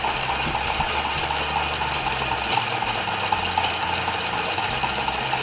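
Battery-powered motor of a Lalaloopsy Tinies Jewelry Maker toy running steadily, its small plastic gears whirring and clicking as the toy spins.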